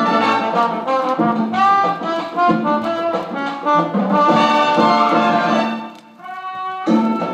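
Brass-led band music with trumpets and trombones, played from a vinyl record on a turntable. About six seconds in it drops briefly to a quieter held note, then the full band comes back in.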